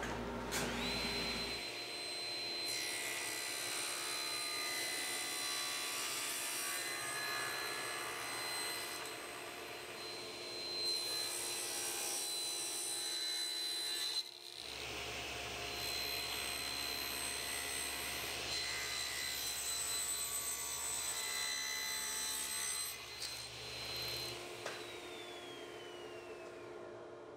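Table saw running with a steady high whine as it rips thin hardwood strips. Near the end the motor is switched off and the whine falls in pitch as the blade spins down.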